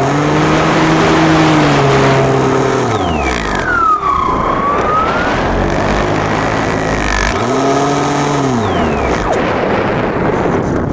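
RC model airplane's motor and propeller heard from on board, with wind rushing over the microphone. The motor's note falls away about three seconds in, a high whine dips and rises, and the motor comes back up after about seven and a half seconds before falling off again.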